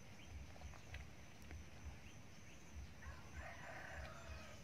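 Quiet background with scattered faint soft clicks; about three seconds in, a faint fowl call lasting about a second.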